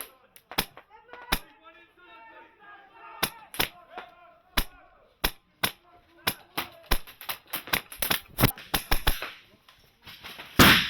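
Airsoft guns firing single shots: sharp, irregular snaps about every half second to a second, with one louder, longer burst near the end and faint distant voices.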